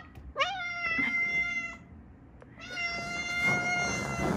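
A cat giving two long, drawn-out meows, each about a second and a half. The first opens with a quick rise in pitch and then holds steady.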